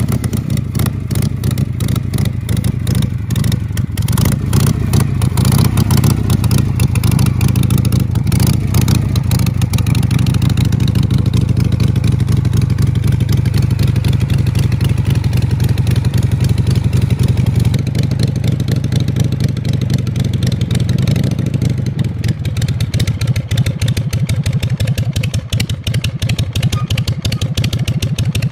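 Harley-Davidson Shovelhead V-twin motorcycle engines running steadily, one bike and then, about two-thirds of the way through, another.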